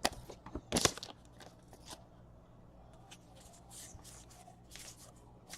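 Baseball trading cards being handled and slid past one another, a few soft brushing scrapes, the loudest just under a second in.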